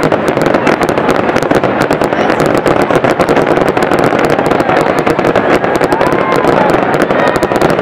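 Fireworks going off continuously: a dense, rapid crackling with pops.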